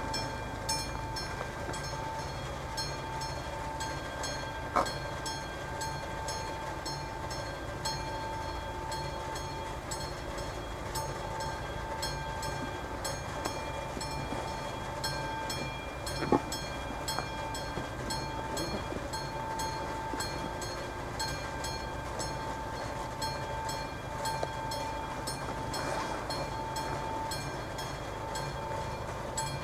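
Level-crossing warning bell of an AŽD 71 signal, a classic mechanical bell, ringing on and on with an even repeated strike while the crossing is closed. Two sharp knocks stand out, one about five seconds in and one about sixteen seconds in.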